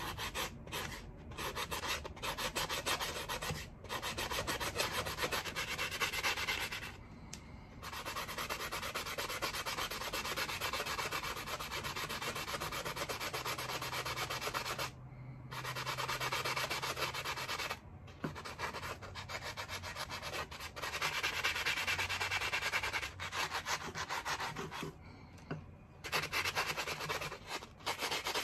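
Sandpaper sponge pad scrubbed rapidly back and forth over the rusty steel blade of a carving chisel coated in baking soda paste, scrubbing off the rust. It goes in several bouts with brief pauses between them.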